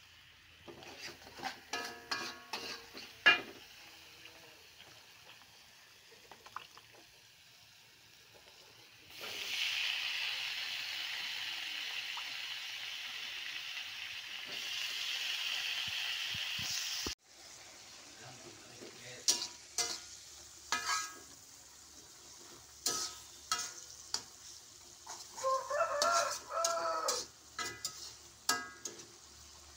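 Metal spatula scraping and knocking against an aluminium wok as spice paste is stirred, in scattered strokes. About nine seconds in, a steady frying sizzle starts as green beans go into the hot oil, and it cuts off abruptly after about eight seconds. Then more spatula scrapes and knocks as the beans are stirred, with a short wavering pitched sound near the end.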